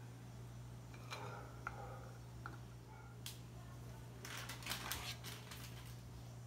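Faint clinks and scrapes of a metal spoon dipping into a stainless steel pan of thick cream and against a glass dish, busiest from about four seconds in, over a steady low hum.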